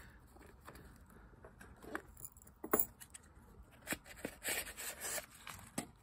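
Light, scattered clicks and scrapes of a cardboard knife tube being handled and its white plastic end cap pulled off, with a short rustle near the end.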